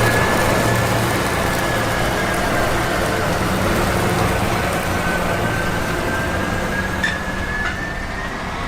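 Combine harvester running under load: a steady mechanical din with a thin, high whine that dips slightly in pitch and comes back up. There is a single click about seven seconds in, and the noise eases off a little near the end.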